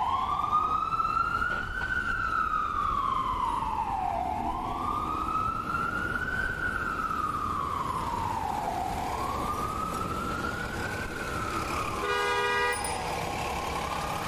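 Ambulance siren wailing, its pitch rising slowly and falling again about every four and a half seconds over a low traffic rumble. Near the end a short horn blast sounds for under a second.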